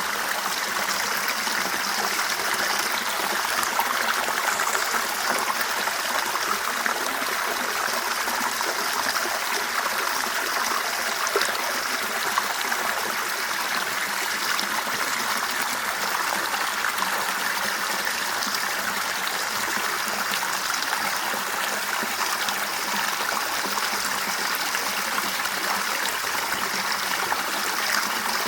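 River water running steadily over stones, an even rushing and trickling with faint splashes.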